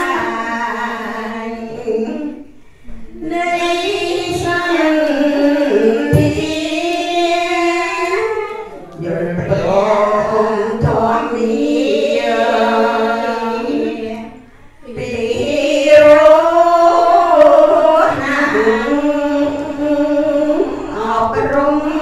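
A group of women chanting a Cambodian Buddhist chant together in unison, one voice on a microphone. The chant moves in long melodic phrases, breaking briefly about two and a half seconds in and again near the middle.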